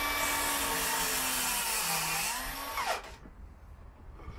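AEG mitre saw cutting through a length of timber, its motor running with a steady whine over the noise of the blade. About three seconds in the motor winds down and stops.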